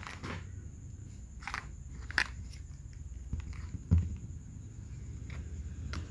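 Scattered light clicks and knocks of small plastic toy pieces being handled, the sharpest about two seconds in and a duller knock about four seconds in, over a low steady rumble.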